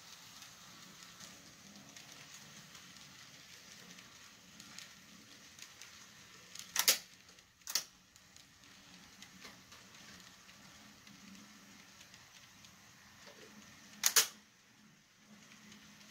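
Model freight train rolling along layout track: a faint steady hum with light ticking. Two loud sharp clicks come about a second apart near the middle, and another near the end.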